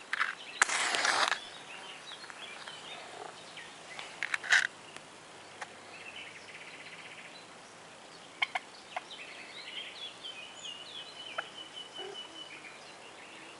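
A wooden match struck on the matchbox's striker strip: a short scratch and flare of ignition just under a second in. Faint bird calls and chirps follow while the match burns.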